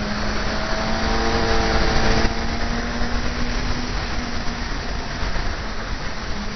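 Motorcycle engine running under way with wind noise rushing over the microphone. It builds louder for about the first two seconds, then drops back to a quieter, steady run.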